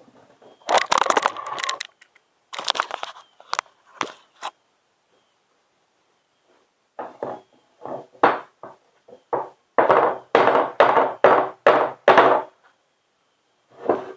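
Hand tools working on the metal parts of a frost-free yard hydrant being dismantled. A few rough scrapes early on, then a run of short rough strokes, about two a second, in the second half.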